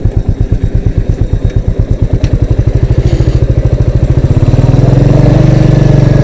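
Motorcycle engine heard through a helmet-mounted mic, first pulsing slowly at low revs, then speeding up until about four seconds in it settles into a steady, louder drone as the bike accelerates.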